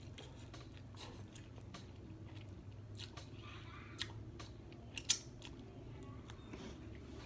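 Close-up eating sounds: chewing with a few sharp crunchy clicks, the loudest about five seconds in, over a faint low steady hum.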